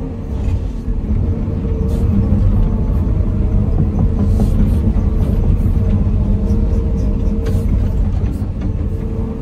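Hydraulic excavator's diesel engine and hydraulics working, heard from inside the cab as the boom and bucket are moved: a steady low rumble with a steady tone over it, getting louder about two seconds in.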